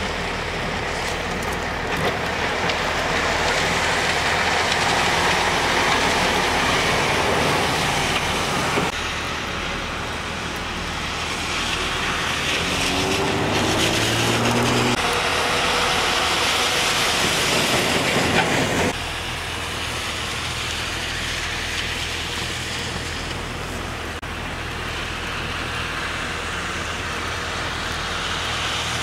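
Rain and traffic on wet streets: a steady hiss of rain and tyres spraying through water as vehicles, a tanker truck among them, drive past, with a low engine note briefly rising out of it near the middle.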